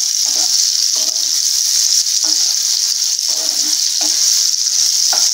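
Nendran banana slices sizzling in ghee in a non-stick frying pan, a steady high hiss, with a spatula scraping and turning the slices every second or so.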